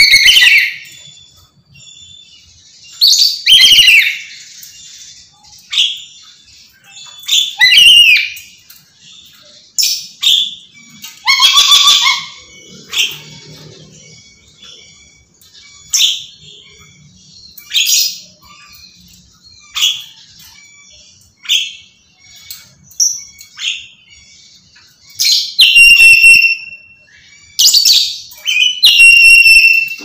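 Black-capped lory screaming: loud, high-pitched shrieks repeated every second or two, some short and falling in pitch, others longer and held, with brief quiet gaps between them.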